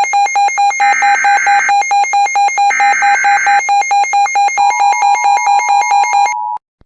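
Emergency Alert System alert tones. A loud beeping tone pulses about six times a second, with three short bursts of screeching data noise. A second steady tone joins about two-thirds of the way in, and everything cuts off suddenly just before the next alert begins.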